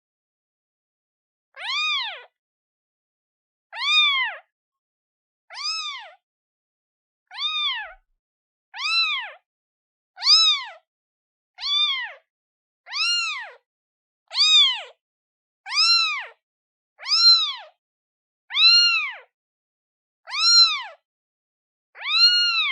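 Day-old newborn kitten meowing over and over, calling for its mother: about fourteen short, high meows, each rising then falling in pitch, roughly one every second and a half.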